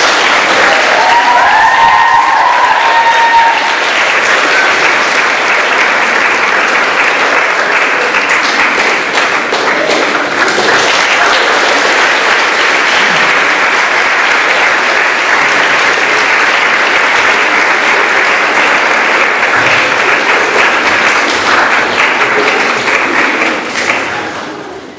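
A large audience applauding, dense steady clapping, with a few voices calling out about two seconds in; the applause dies away near the end.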